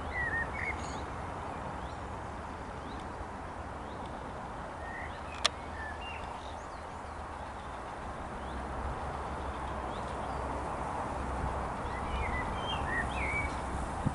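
Small birds chirping in short scattered calls over a steady outdoor hiss and low rumble, with one sharp click about five and a half seconds in.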